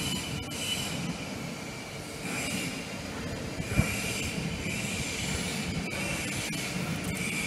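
Steady workshop machinery noise with high squeals that come and go every second or two, and one sharp knock a little under four seconds in.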